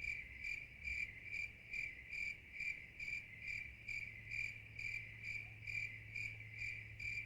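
A cricket chirping at an even pace, about two and a half high chirps a second, with a faint steady low hum underneath.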